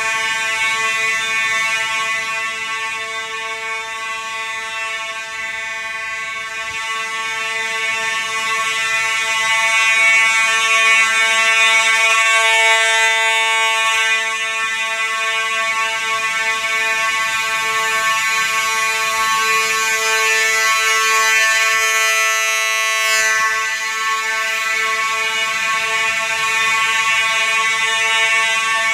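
Simplex fire alarm horns sounding continuously in a system test: one steady, loud buzzing horn tone with no breaks.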